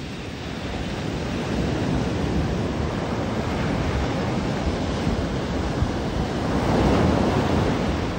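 Sea waves breaking and washing up a sandy beach in a steady rush of surf. It swells louder about a second in and is loudest shortly before the end, as a wave breaks close by.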